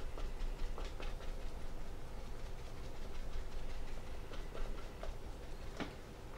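Soft, irregular taps of a small sponge dabbing acrylic rust texture paint onto the wooden roof of a model building and blotting it on paper, over a steady low hum.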